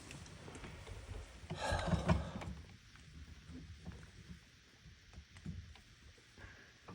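Handling noise from working on a dishwasher's water valve and hoses: a brief rustle and clatter about two seconds in, then scattered faint clicks and taps.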